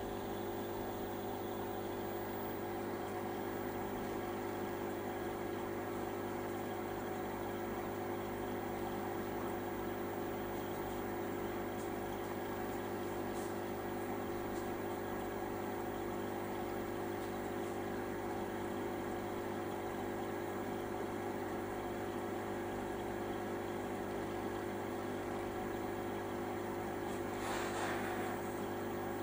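Steady electric hum of aquarium pump equipment, a constant drone of several fixed tones over a light hiss. A brief burst of noise breaks in near the end.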